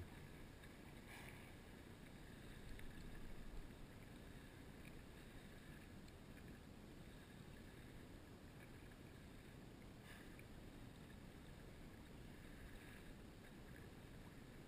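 Faint water sloshing and lapping against a kayak on choppy sea, a little louder for a second or so about three seconds in.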